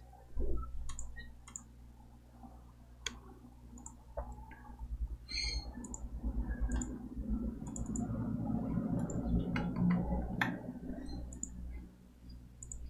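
Scattered sharp clicks, with low rumbling and rustling handling noise close to the microphone through most of the middle stretch, dying away near the end.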